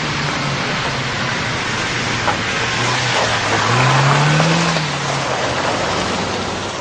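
Car engines running as cars drive past; one engine revs up and eases back down about four seconds in.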